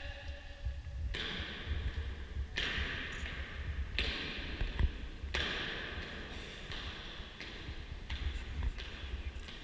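Soldiers' boots striking a stone floor in slow, measured marching steps, each step ringing on in a large vaulted hall. The steps come about every second and a half, then faster near the end.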